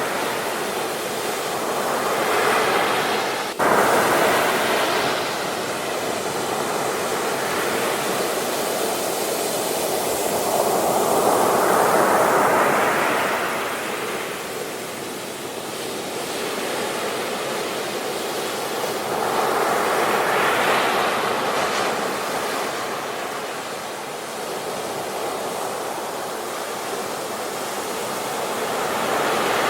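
Sea waves breaking on the shore: four surges of surf that swell and fall away about every eight to nine seconds. There is a brief sharp click about three and a half seconds in.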